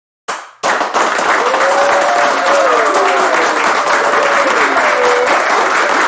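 Crowd applauding and cheering, with a few voices whooping over the clapping. A brief burst comes first, the full applause starts abruptly under a second in and cuts off suddenly at the end.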